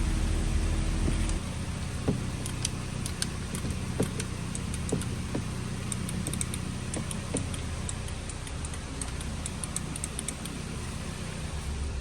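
A steady low mechanical hum that stops about a second and a half in, followed by scattered light clicks and ticks, like small parts or tools being handled.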